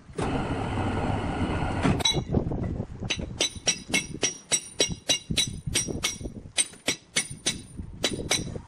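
Steady machine noise for about two seconds that stops, then a fast series of ringing metal-on-metal strikes, about four a second: hammer blows on steel.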